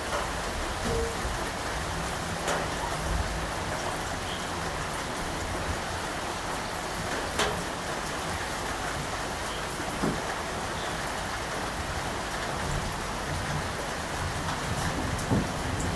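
Steady rain falling on surfaces, with a few louder single drop hits standing out here and there.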